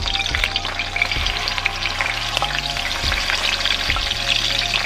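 Hot oil sizzling steadily as a whole seasoned red snapper is laid in to shallow-fry.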